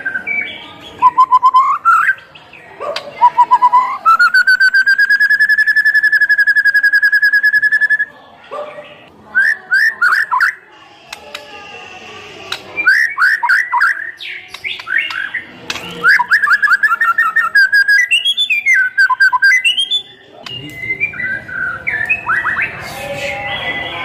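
White-rumped shama (murai batu) singing a loud, varied song: a long held whistle with a fast wobble about four seconds in, then runs of quick, sharply falling notes and shifting whistled phrases.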